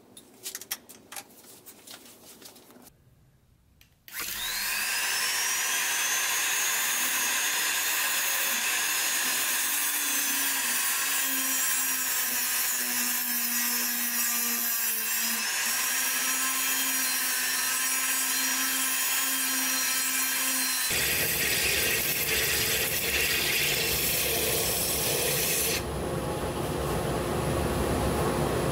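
A few light handling clicks, then a handheld rotary tool spins up with a rising whine about four seconds in and runs steadily, sanding out the bowl of a quartersawn oak spoon. Two-thirds of the way through it gives way abruptly to the coarser rasping of wood held against a sanding disc spinning on the lathe.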